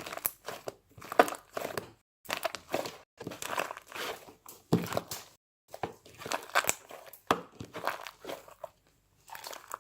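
Fluffy slime being squeezed and pulled by hand, giving irregular short crackles and crinkles, with a few brief silent gaps.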